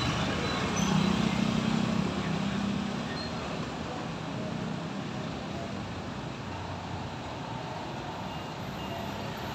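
Motor scooters passing on a city street, with steady traffic noise. One engine hum is loudest from about a second in and fades by three seconds.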